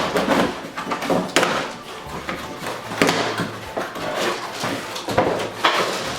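Repeated knocks and thuds with rustling between them as a stroller's box and parts are unpacked and handled.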